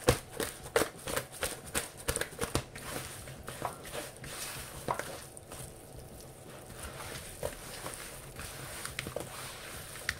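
Pieces of makayabu (salted fish) being tossed and rubbed by hand with powdered seasonings in a plastic mixing bowl. There is a quick run of knocks and slaps against the bowl for the first couple of seconds, then quieter rubbing with a few scattered taps.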